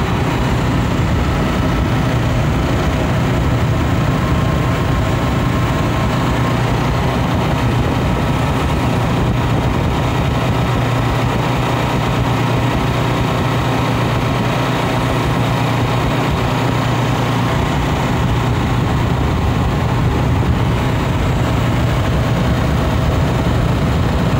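Cold-room condensing unit with a Bitzer semi-hermetic compressor running with a steady hum, after its refrigerant charge has been topped up.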